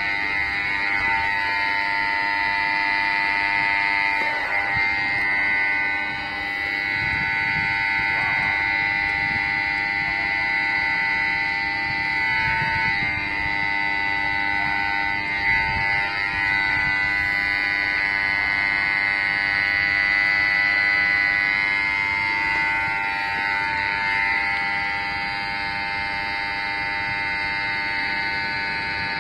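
Railway level-crossing emergency buzzer sounding as one steady, unbroken electronic tone. It was set off by someone pressing the crossing's emergency button.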